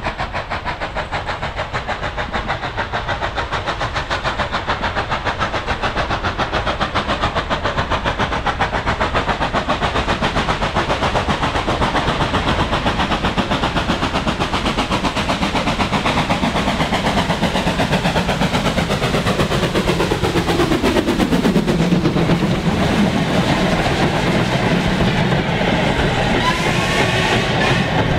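Ivatt Class 2MT 2-6-2T steam tank engine No. 41312 working a goods train. Its even exhaust beats grow louder as it approaches, and the pitch drops as it passes close by about twenty seconds in. The loose-coupled wagons then roll past with a rhythmic clatter over the rail joints.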